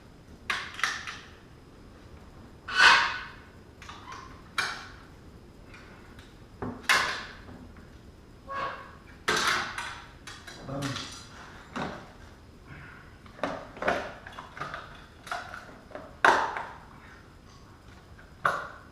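Hand tools and metal steering parts clinking, knocking and scraping in irregular short strikes, about a dozen over the span, some with a brief metallic ring, while the tie rod and its boot clamp are worked off.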